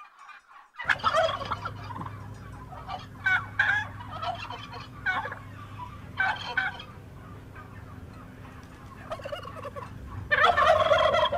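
Male turkey gobbling in a series of short rattling calls, starting about a second in, with the loudest and longest gobble near the end, over a steady low hum.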